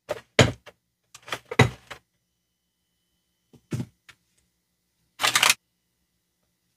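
Brief crinkles and rustles of wax paper bags and plastic toy parts being unwrapped and handled, in a handful of short bursts with silent gaps between them.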